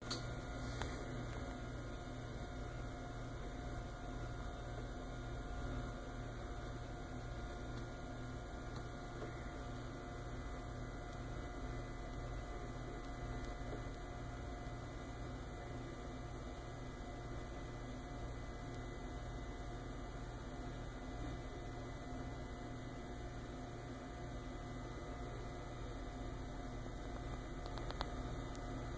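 Steady low electrical mains hum with faint room noise, unchanging throughout, with a faint click about a second in and another near the end.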